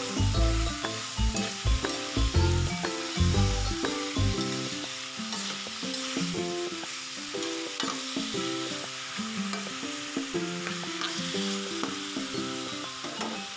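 Raw chicken pieces frying with chilies, onion and garlic in a hot pan while being stirred with a spatula: a steady sizzling hiss. Background music plays throughout, loudest in the first few seconds.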